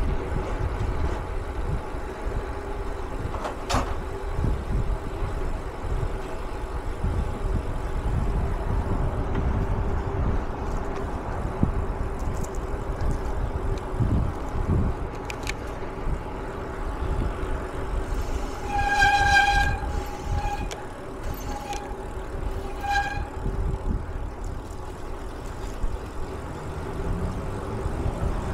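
Steady vehicle rumble with a constant hum. About two-thirds of the way through, a horn sounds for about a second, followed by four short toots.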